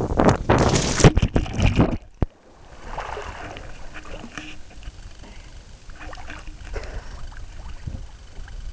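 Loud splash of a person plunging into lake water, then water sloshing and lapping close to the microphone at the surface.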